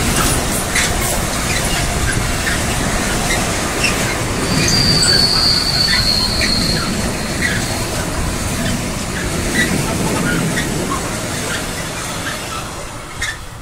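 A train passing close by on the track, its wheels clicking over the rails. There is a single high wheel squeal about four and a half seconds in that lasts about two seconds. The sound fades away near the end.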